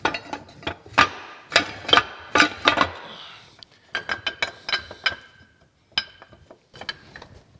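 Cast-iron parts of an old cane mill clanking as the scraper (guide knife) is worked loose by hand. There is a quick run of sharp metal knocks with ringing, then lighter ringing clinks about four seconds in, and one last knock a little later.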